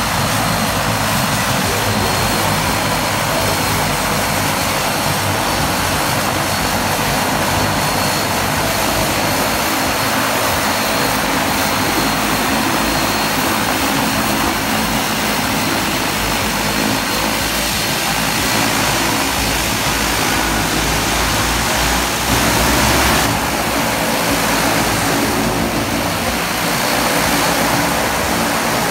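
Twin-engine turboprop floatplane, a de Havilland Canada Twin Otter, running steadily on the water, with a faint high whine over the engine noise.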